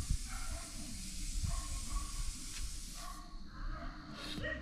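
Soft rustling and handling noise from leafy greens being picked by hand, over a steady hiss that drops away about three seconds in.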